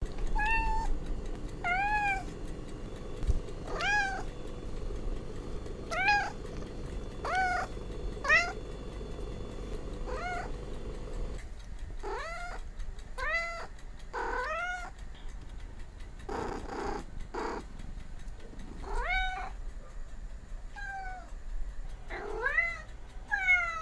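Domestic cat meowing again and again, short meows that rise and fall in pitch, one every second or two, with one longer, rougher meow about two-thirds of the way through.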